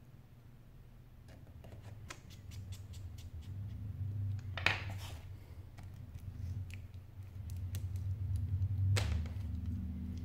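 Small clicks, taps and short scrapes of hands handling parts inside an opened Sony Xperia Z2 as the battery is pressed into the frame, with a louder scrape about four and a half seconds in and another near nine seconds, over a low steady hum.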